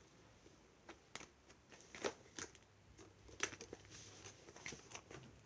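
Faint, scattered clicks and rustles of a plastic ruler and planner being handled as the ruler is put back into the planner.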